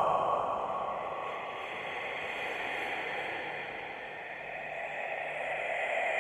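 Eerie breathy whispering sound effect, heard as a hissing rush of breath with no clear words. It fades down through the middle and swells again near the end.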